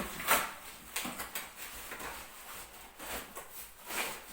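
Plastic bowls and plates being handled and set against each other: several light knocks and clacks, the first the loudest, with quieter handling noise between.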